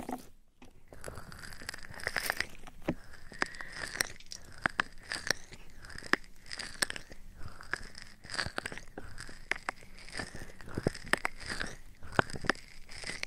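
Close-microphone ASMR sounds: irregular sharp clicks and crackles, many in quick succession, over soft rubbing.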